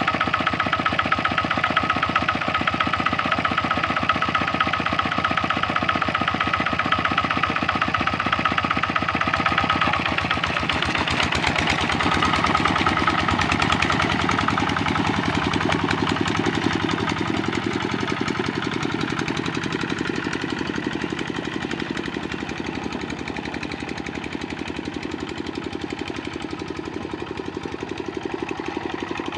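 Single-cylinder Kubota RD65 diesel engine on a hand tractor, running steadily with an even firing beat. It grows gradually quieter over the second half.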